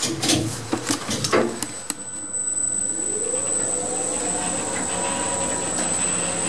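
Lift machinery starting up in the motor room: a quick series of clicks and clunks from the controller relays and brake, then the traction motor winding up with a rising whine. It settles into a steady running hum with a constant high-pitched whine from the variable-frequency drive.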